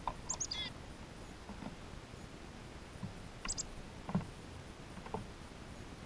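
Small songbirds giving short high chips: a quick run of falling notes about half a second in and a pair about three and a half seconds in. Between them come soft knocks of birds pecking seed on the wooden feeder table.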